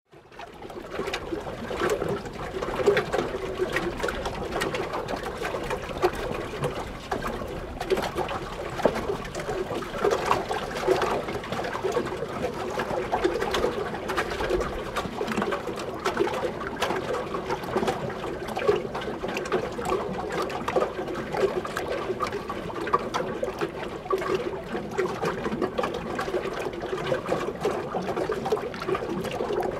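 Small waves lapping and sloshing against a wooden boat pier, a continuous irregular patter of small splashes and plunks.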